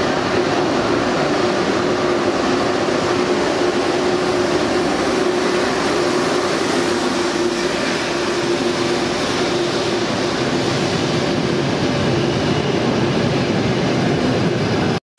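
High-speed electric train running along a station platform: a steady rolling rumble with a constant hum, cutting off abruptly just before the end.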